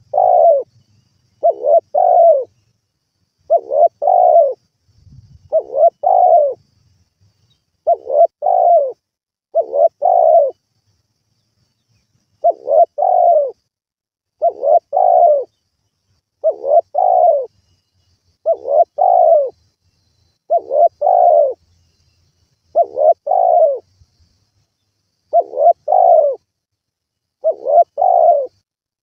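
Spotted dove cooing: a short phrase of a few low coos, repeated about every two seconds, with two slightly longer pauses between phrases.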